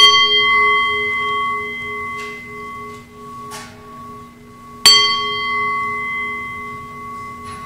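Singing bowl struck twice with a mallet, once at the start and again about five seconds in. Each strike rings on as a layered, slowly fading tone, and there are a couple of faint soft knocks in between. It is rung to call the gathering into worship.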